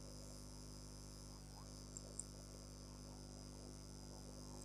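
Faint steady mains hum and hiss from the recording microphone, with two faint clicks about two seconds in.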